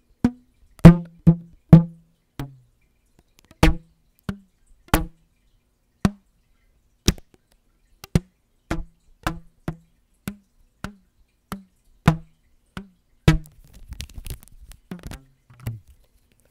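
Rubber band stretched between the fingers and plucked right at a microphone: about twenty short, low twangs, each a snap with a brief hum, roughly one or two a second. Near the end the plucking gives way to softer rustling and fiddling with the band.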